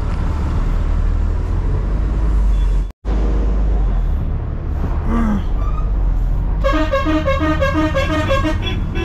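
Loaded truck's engine running with a steady low rumble as it drives slowly through traffic. From about seven seconds in, a vehicle horn sounds in a quick run of short toots, about four a second. The sound cuts out briefly about three seconds in.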